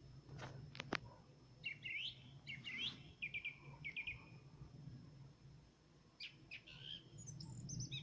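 Nightingale singing in separate phrases: a couple of sharp whip-like notes, then rising whistled notes and a fast run of about five repeated notes, and high thin notes near the end. A steady low rumble sits underneath.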